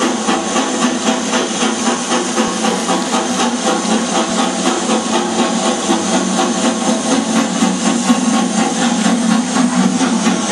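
Steam locomotive working steadily, a continuous hiss of steam with an even, rhythmic chuff pulsing several times a second.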